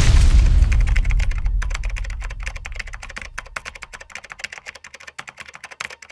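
A sudden deep boom that fades away over about three seconds, under a fast run of computer-keyboard typing clicks that thins out toward the end. It is a typing sound effect for on-screen text being typed out letter by letter.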